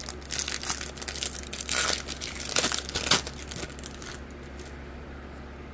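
Trading-card pack wrapper crinkling and tearing as it is ripped open by hand and the cards are slid out, in irregular crackling bursts that stop about three and a half seconds in.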